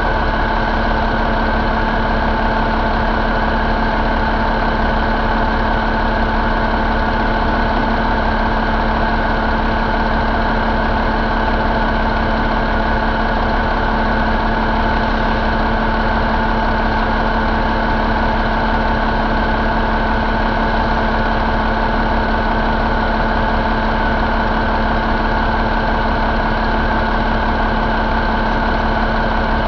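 2012 Cummins ISX15 inline-six diesel engine idling steadily at constant speed.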